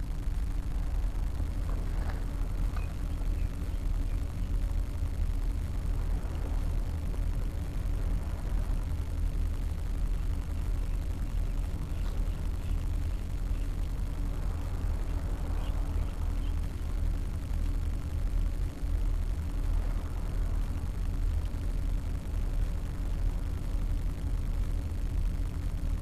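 Wind rumbling steadily against the microphone on an open seawall, with a faint constant hum underneath.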